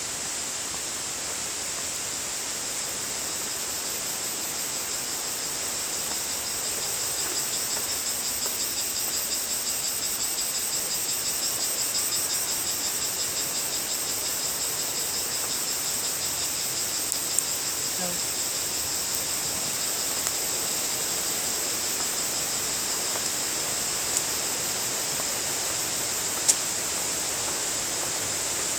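Insect chorus: a steady, high, rapidly pulsing trill in several pitch bands, over a faint steady rushing noise. A few sharp clicks are scattered through it.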